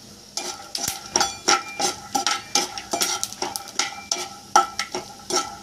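Peanuts frying in hot oil in a kadai, sizzling with irregular crackles, while a metal slotted spoon scrapes and clicks against the pan as they are stirred. The clicks come several times a second.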